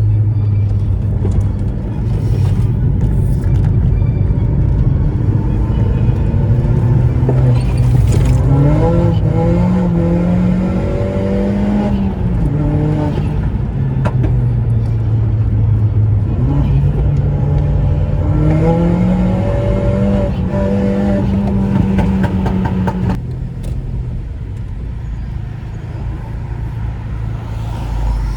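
Seat Leon's 1.8T 20-valve turbo four-cylinder engine under acceleration, the revs climbing in two pulls with a drop between them. The second pull ends abruptly as the throttle is lifted about three quarters of the way through, leaving a lower rumble.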